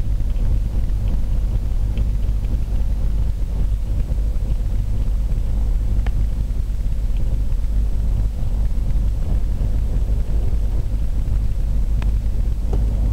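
Beechcraft Bonanza's piston engine running at low taxi power, heard from inside the cockpit as a steady low drone, with an occasional faint click.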